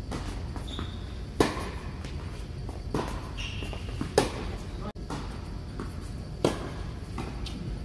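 Tennis rally on an indoor court: a ball struck by rackets and bouncing, four sharp pops spread unevenly over several seconds, over a steady low hall hum.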